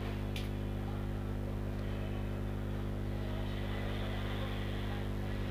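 Steady electrical mains hum, a buzz with many evenly spaced overtones, over a background hiss. Faint scratching of a pen writing on paper in the middle.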